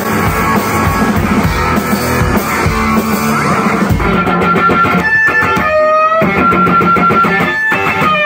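Rock band playing, with electric guitar and drum kit. About four seconds in the mix thins out to sharp drum hits under held high guitar notes that bend in pitch.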